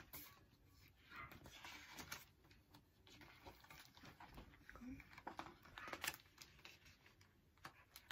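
Faint rustling and handling of a hardcover picture book as its pages are turned, with a sharper tap about six seconds in; otherwise near silence.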